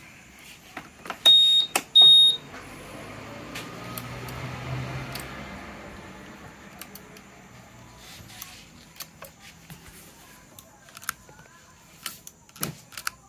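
Two short, high-pitched electronic beeps about two-thirds of a second apart, followed by a low hum that swells and fades and a scatter of light clicks.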